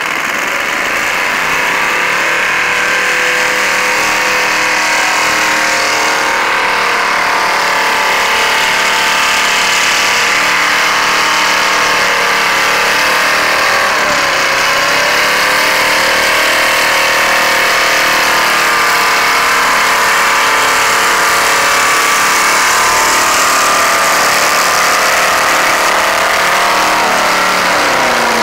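Car engine held at high revs through a long burnout, the rear tyres spinning and smoking on the pavement. The engine note stays steady apart from a brief dip in revs about halfway through and another near the end.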